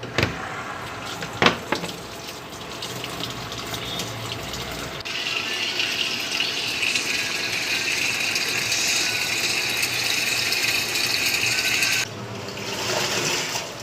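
Water gushing into the drum of a fully automatic washing machine through its inlet as it fills, louder from about five seconds in and dropping away near the end. Two sharp clicks come within the first couple of seconds. The machine is filling normally with its new control board fitted.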